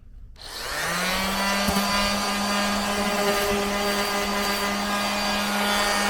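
Electric sander switched on: it spins up about half a second in, then runs at a steady pitch while sanding down a cured fiberglass resin patch.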